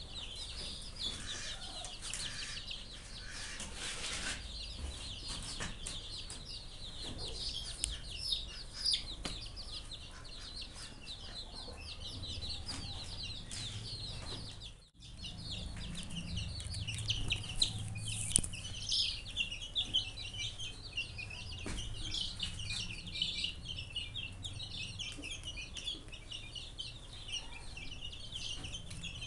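A flock of young chicks peeping continuously, many short high-pitched cheeps overlapping, with a brief break about halfway through.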